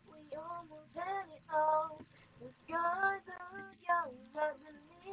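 A child singing a melody in short phrases of held notes.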